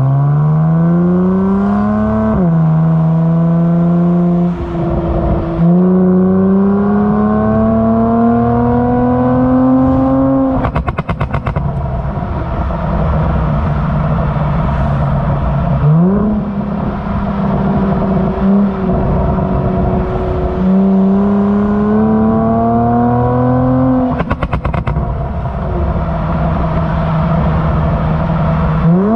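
Kia Stinger GT's twin-turbo V6 exhaust, tuned for pops and bangs, accelerating repeatedly, with the pitch rising and then dropping sharply at each gear change. Twice, after a pull, a quick rapid string of crackles and pops comes as the throttle is lifted: the pop-and-bang tune firing on overrun.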